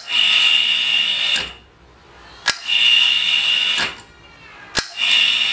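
Homemade electric hoist with a 1/2 hp motor run in three short bursts of about a second and a half each, whining steadily while it turns the cable drum. Each burst starts with a sharp click as the solenoid pulls the motorcycle hub-brake lever to free the drum, and stops abruptly.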